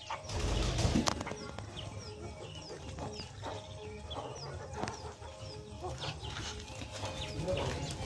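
Free-ranging poultry, chickens and guinea fowl, calling: clucking, with short high peeps that fall in pitch, repeating every half-second or so.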